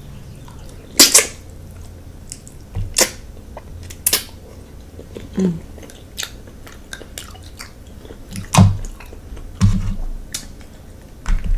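Close-miked chewing and lip smacking while eating king crab legs: short, sharp wet smacks every second or so, the loudest about a second in.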